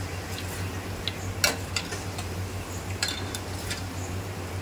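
Wire mesh skimmer clinking and scraping against the rim and sides of a steel frying pot while fried bitter gourd slices are lifted out of the oil. The knocks come irregularly, the sharpest about a second and a half in and a quick cluster near the end, over a steady low hum.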